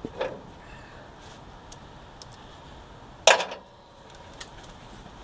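Scattered light metallic clicks and one louder clank about three seconds in: hand tools working on the brake-line bracket bolt under the car.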